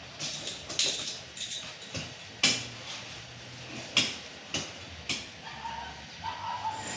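Climbing spurs driving into a palm trunk as a climber steps up, heard as a series of sharp, irregular knocks with clinks from the harness and lanyard hardware.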